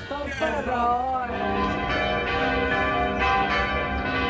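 Church bells ringing, several bells striking over and over with a long ring, starting about a second in.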